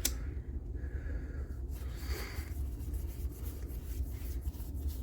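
Faint rubbing and small clicks of trading cards being handled and slid through the hands, with a soft breath about two seconds in, over a low steady hum.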